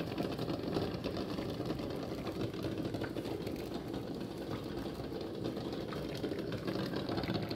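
Water at a full rolling boil in a steel pot of eggs: a steady, dense, rapid bubbling rattle.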